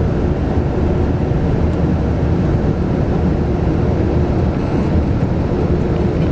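Steady engine and road rumble heard inside a moving vehicle, even and unbroken, with a faint steady hum above the low drone.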